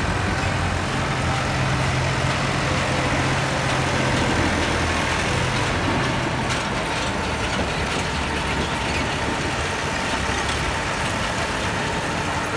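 Massey Ferguson 277 tractor's diesel engine running under load as it pulls a loaded beet trailer up a steel ramp, the engine note steady and growing weaker after about six seconds, over steady machinery noise.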